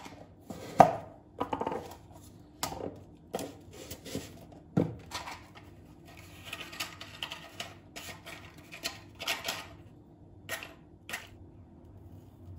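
Kitchen work: irregular knocks, taps and clatter of utensils and dishes being handled, about a dozen separate strikes, the loudest about a second in.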